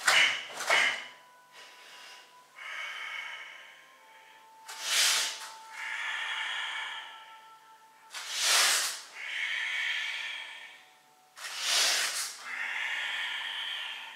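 A karateka's forceful breathing while performing a Shotokan kata: a short, sharp hissing exhale with the techniques, four or five times, each followed by a longer, softer breath in.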